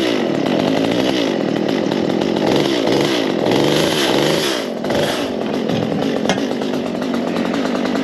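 Two-stroke chainsaw running at an uneven idle, its engine pitch wavering up and down.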